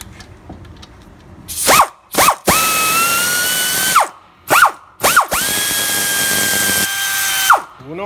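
Cordless electric ratchet spinning a socket to back out the front wheel-bearing hub bolts. There are two short blips, then a steady run of about a second and a half, another blip, and a longer steady run of about two and a half seconds. Each start rises quickly to an even pitch, and each run stops abruptly.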